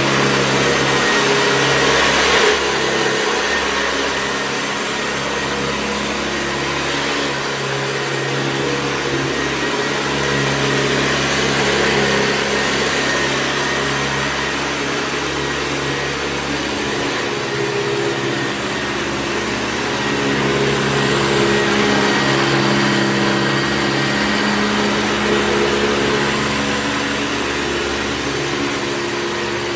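Hoover Convertible upright vacuum cleaner running steadily: a motor hum with a loud hiss of rushing air. Its note shifts slightly about halfway through.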